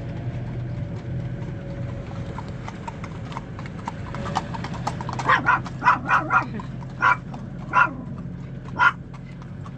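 Horses' hooves clip-clopping on an asphalt road, heard from a slowly moving camper van with its engine humming underneath. From about five seconds in, a Pomeranian barks about eight short, high yaps, the loudest sounds here, set off by hearing the horses.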